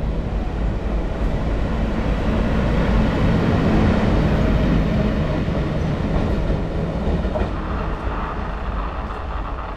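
Indian Railways diesel locomotive passing close on the rails, its engine running with a deep rumble. It is loudest a few seconds in as it goes by, then fades as it moves away.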